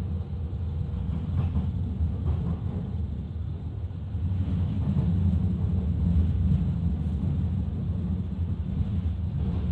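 S-Bahn train running, heard from inside the carriage: a steady low rumble of wheels on the track that grows a little louder about four seconds in.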